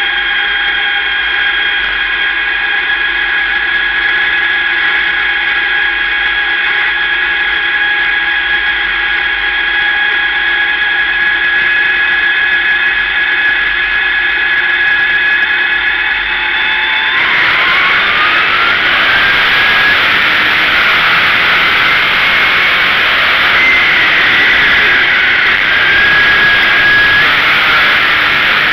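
Dirt-track sportsman race car's engine heard from inside the car, running at an even, steady speed with a high whine. About two-thirds of the way in it revs up in a rising whine and turns louder and rougher as the car accelerates.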